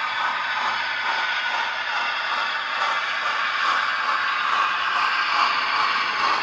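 00 gauge model trains running on the layout: a steady rushing hiss of wheels rolling on the track, a little louder near the end as a locomotive draws close.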